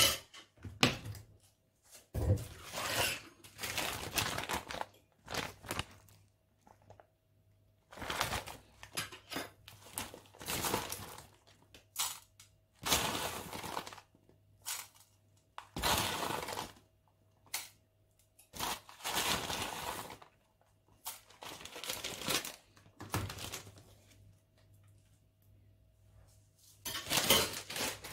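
Plastic bag crinkling as chopped onion is tipped out of it into a nonstick frying pan of oil, with the pieces dropping onto the pan and a few knocks. The sounds come in irregular bursts of a second or so with short pauses between, and a faint steady hum underneath.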